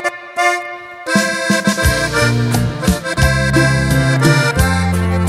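Accordion-led norteño band playing the instrumental intro of a song. A held accordion chord opens it, and about a second in the full band enters with a low bass line and a steady rhythmic pulse under the accordion melody.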